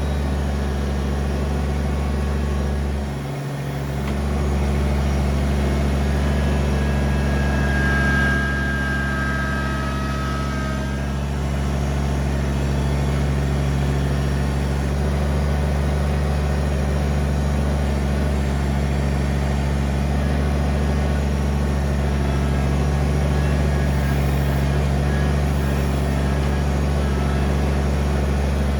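Kubota BX23S compact tractor's three-cylinder diesel engine running steadily under work. It dips briefly a little over three seconds in, and a thin high whine sounds for a couple of seconds around eight seconds in.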